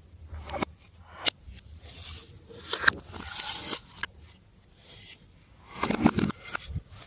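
Hands working glossy slime, stretching, pressing and folding it, with irregular sticky clicks, pops and squelches; the loudest stretch is a cluster of squelches about six seconds in.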